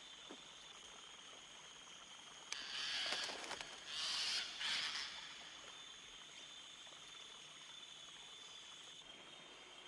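Rainforest ambience: a steady high-pitched insect drone throughout. From about two and a half to five seconds in it is broken by three loud noisy rasping bursts.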